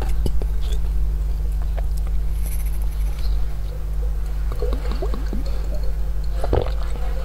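Close-miked sipping and gulping of a drink from a glass bottle, with small wet gurgles and swallows clustered in the second half, over a steady low hum. A light knock near the start.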